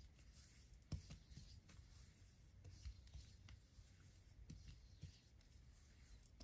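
Near silence with faint skin-on-skin rubbing as hands stroke lotion up the neck, and a few soft clicks, the sharpest about a second in.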